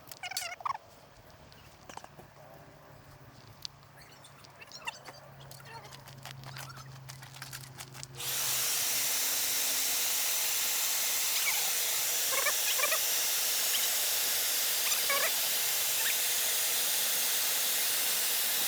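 Faint clicks and short chirps, then about eight seconds in a loud steady hiss with a faint steady hum starts abruptly: an electric air blower switched on to inflate RV air skirting.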